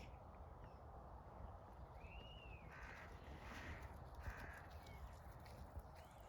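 Faint crows cawing, several short calls about two to four and a half seconds in, over near silence.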